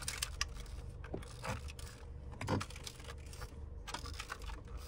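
Centre-console climate-control switches of a 2021 Mercedes C300 being pressed over and over, a string of irregular clicks over a steady low cabin hum.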